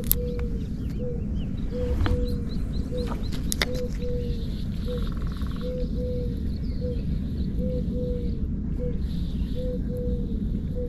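A bird calling outdoors with a low coo repeated about twice a second, some notes short and some drawn out, over a steady low rumble of wind or water. A few sharp clicks come near the start and again around the second and third seconds.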